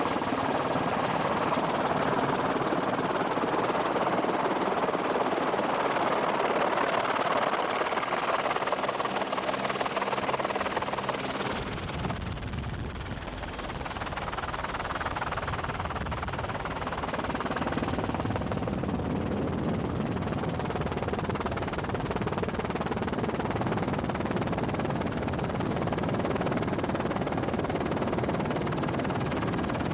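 Helicopter noise heard from aboard the helicopter: a loud, steady engine and rotor din. About twelve seconds in it briefly dips and turns deeper, then settles back to a steady drone.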